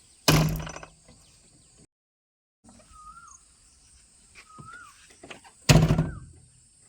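Two heavy thuds about five seconds apart, each fading over about a second, with two short chirps between them.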